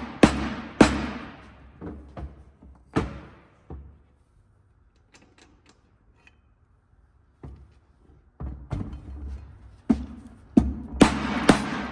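A mallet knocking the cast-aluminium case half of a Honda K-series transmission down onto the other half: a run of sharp knocks, a pause of a few seconds, then quicker strikes near the end. The case is going on rough, which the builder puts down to a chewed-up dowel pin.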